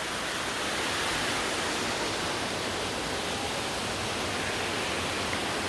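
Steady rush of water from a waterfall on a mountain stream.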